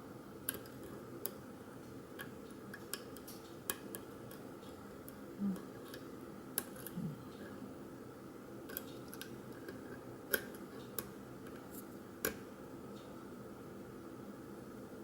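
Scattered light metallic clicks from a thin hook pick and tension wrench working the pin stack of a 50 mm padlock, about fifteen clicks with irregular gaps, over a steady low hum. Two brief low sounds come about five and seven seconds in.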